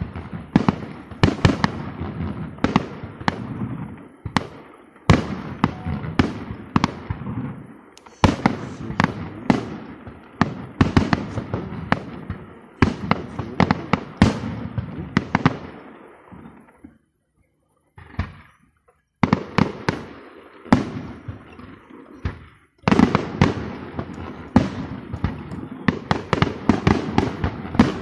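Fireworks display: aerial shells bursting in quick succession, many sharp bangs with crackle and echo between them. The bangs stop for about two seconds past the middle, then resume just as densely.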